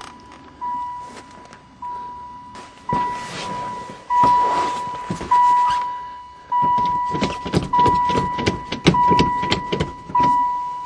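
A vehicle's dashboard warning chime dinging steadily, about once every second and a quarter, now that a good battery has brought the van's electrics back to life. Rustling and a string of sharp clicks from handling things in the cab sit over the chime in the second half.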